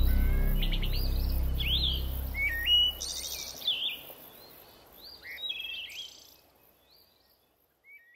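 Songbirds chirping and trilling in quick, varied calls over the tail of background music, which fades out about three seconds in. The birdsong thins out, stops, and one last short call comes near the end.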